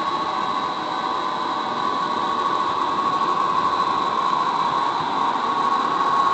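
HO scale model train rolling along its track, heard from a camera riding on the train: a steady running rumble with a thin, high steady whine over it.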